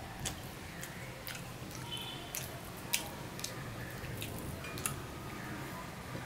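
Soft, wet hand-eating sounds: fingers mashing and mixing rice with fried fish on a plate, with scattered sharp little clicks and smacks.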